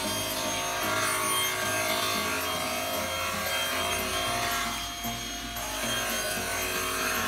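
Two-blade sliding table panel saw cutting through a board, the spinning blades running with a steady whine under the noise of the cut.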